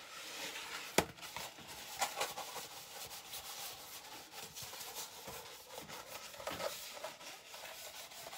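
Packaging paper rustling and crinkling as a rolled canvas print is handled and unrolled, with a sharp tap about a second in and smaller knocks after.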